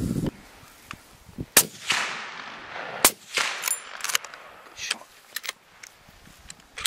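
Two rifle shots about a second and a half apart, the first the louder, each followed by a rolling echo.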